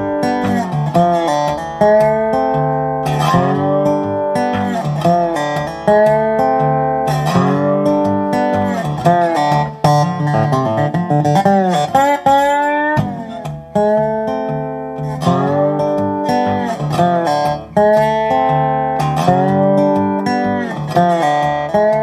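Leno Reso S resonator guitar with a spider cone and mahogany body, fingerpicked in a blues piece: a steady repeating bass note under melody notes that glide in pitch, with a long rising slide about halfway through.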